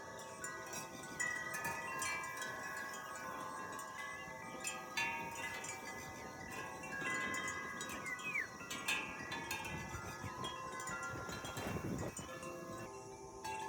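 Wind chimes ringing: many overlapping tones are struck at irregular moments and left to ring on.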